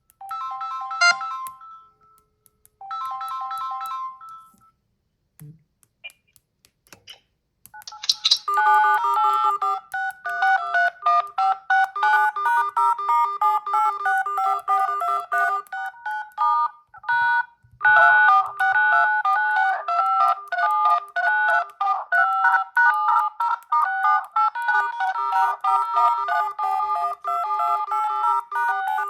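Smartphone incoming-call ringtones: a short electronic melody plays twice near the start, then after a few quiet seconds a longer ringtone with quick repeating notes over a bass line loops on, pausing briefly once.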